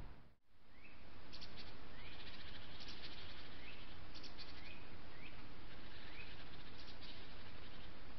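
Small birds calling in woodland: short rising chirps, about five of them, and brief high twittering notes, over a steady hiss. The sound drops out for a moment about half a second in.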